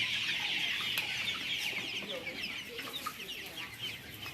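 A large flock of young chicks peeping, a dense chorus of many overlapping short, high chirps that eases slightly toward the end.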